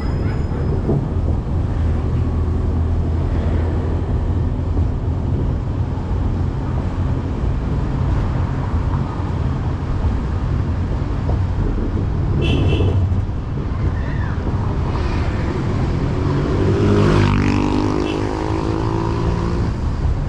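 Steady low rumble of a songthaew pickup's engine and tyre noise, heard from its open rear step while it drives. Near the end an engine climbs in pitch as a vehicle accelerates.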